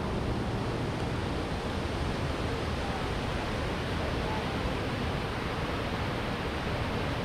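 A steady, even rushing noise that fades out quickly at the very end.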